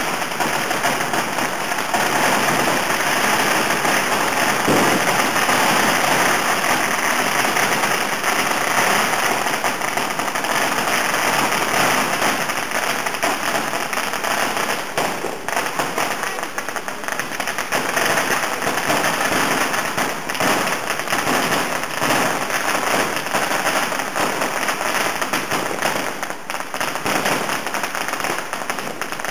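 Street fireworks and firecrackers going off nonstop, a dense crackle of many small bangs overlapping into one continuous din.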